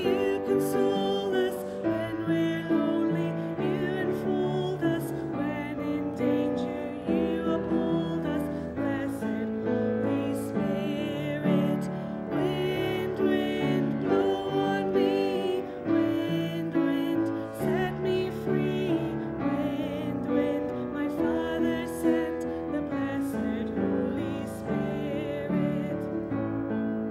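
A hymn with piano accompaniment and a wavering melody line that fits a voice singing the words.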